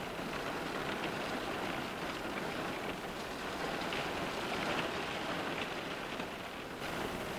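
Steady rain falling on a car's glass, a dense patter of many drops.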